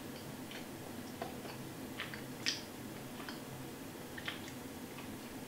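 Quiet room tone with a faint steady low hum and a scattering of small, irregular clicks and ticks, the sharpest about two and a half seconds in.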